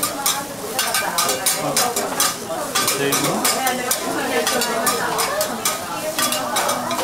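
Food frying and sizzling on a hot iron teppan griddle, with a quick run of sharp clicks and scrapes from metal spatulas working on the plate.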